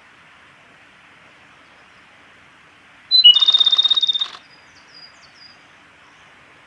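Male Japanese robin singing one song phrase about three seconds in: a short high opening note, then a rapid rattling trill lasting about a second, over a steady background hiss.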